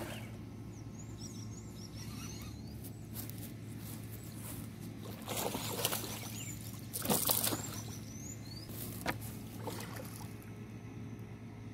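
Hooked traíra (wolf fish) thrashing at the water's surface, splashing in several irregular bursts, the loudest about seven seconds in.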